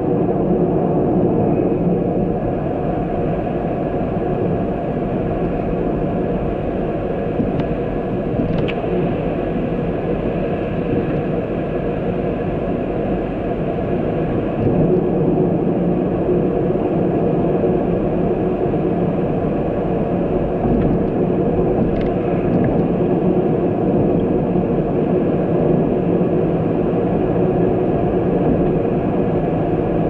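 A road vehicle driving at a steady speed: a constant engine drone with road noise, and a few faint ticks about eight seconds in and again near twenty-two seconds.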